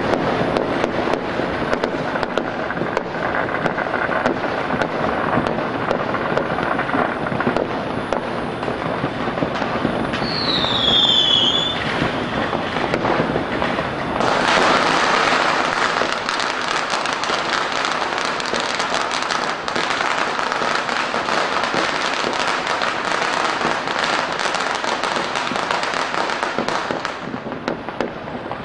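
Many fireworks and firecrackers going off at once across the city, a dense, unbroken crackling and popping. About ten seconds in, a high whistle falls in pitch, and a few seconds later the barrage grows louder.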